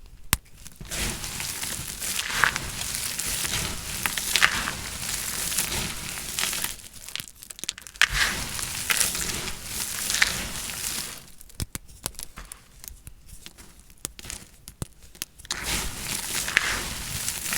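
Knife cutting through dry soap: crisp crunching and crackling as the blade works through, in long runs broken by a quieter stretch with a few sharp clicks about two-thirds of the way in.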